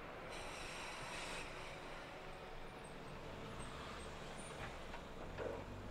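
Waggon Union GT8 high-floor articulated tram rolling along the track toward the listener, a steady running rumble that grows heavier near the end. About a second in comes a brief high hiss with faint thin high tones over it.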